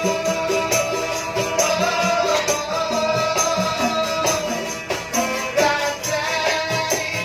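Street musicians performing a song: a melodious voice over a steady, shaken percussion beat.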